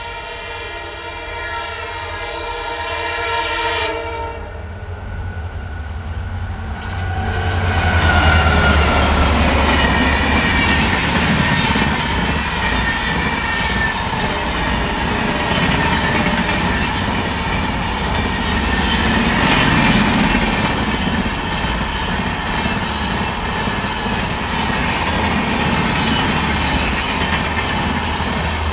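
Diesel WDG4 locomotive (EMD-built, two-stroke 16-cylinder engine) sounding its long-hood horn for about four seconds as it approaches, then passing with a falling whine, loudest about eight seconds in. After that its passenger coaches roll by with a steady clickety-clack of wheels over the rail joints.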